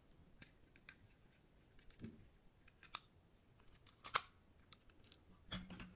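Faint clicks and taps of a plastic Robocar Poli Helly toy helicopter being handled, its rotor and plastic parts knocking, with the sharpest click a little after four seconds in. A short low hum comes near the end.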